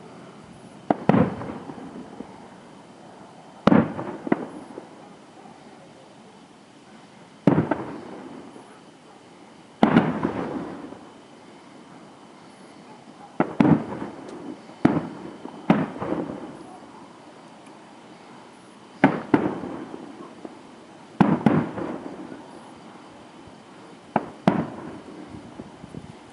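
Aerial firework shells bursting: about a dozen sharp bangs spread out, some in quick pairs, each followed by a long echoing rumble that dies away.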